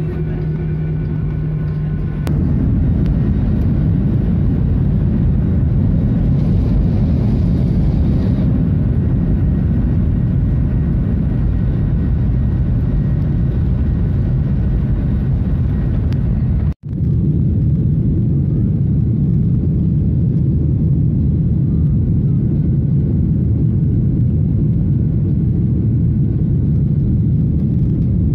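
Cabin noise of a SpiceJet Boeing 737 on its takeoff: a steady engine hum, which about two seconds in steps up to a louder, steady rumble as the engines reach takeoff power. The rumble breaks off for an instant about two-thirds through and carries on as the plane climbs.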